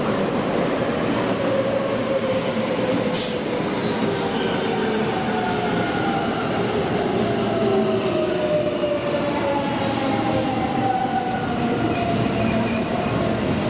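Electric train at a station platform, its motor whine falling slowly in pitch over a steady rumble of wheels on rails as it slows. A single sharp click about three seconds in.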